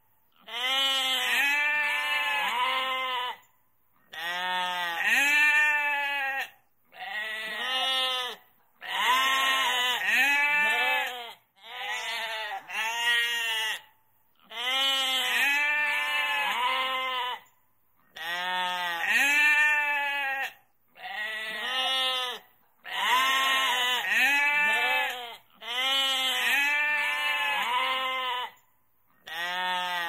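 Sheep and goats bleating: a long run of separate wavering cries, grouped in short bursts with brief silent gaps between.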